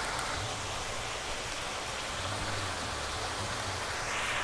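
Clear water flowing steadily along a narrow concrete irrigation channel, a continuous rushing sound that grows a little louder near the end.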